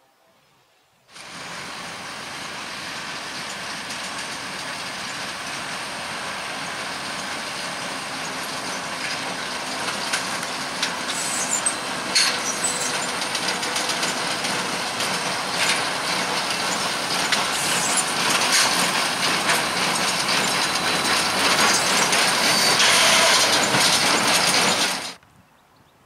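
A small-square-bale outfit at work: a Fendt 720 Vario tractor running a Kayhan Ertugrul KE520 baler with a Bale Baron 4245T accumulator behind it. It makes a steady mechanical clatter with scattered knocks. It starts abruptly about a second in, grows louder throughout, and cuts off suddenly near the end.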